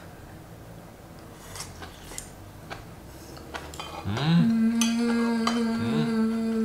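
A few light clicks of chopsticks and dishes on the table. Then, about four seconds in, a woman's voice slides up into a long held 'ooo' note that lasts nearly three seconds, with a second voice briefly sliding up under it near the end.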